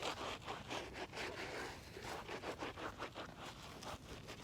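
Quick, repeated scrubbing strokes on an Air Force 1 sneaker, a rough scraping rasp as it is cleaned.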